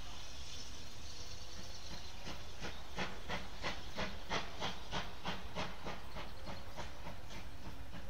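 Steam locomotive working away with a train: regular exhaust beats at about three a second begin about two seconds in and fade out near the end, after a steady hiss.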